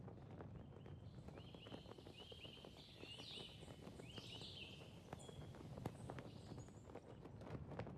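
Faint outdoor ambience with a handful of short high chirps and scattered light clicks over a low background rumble.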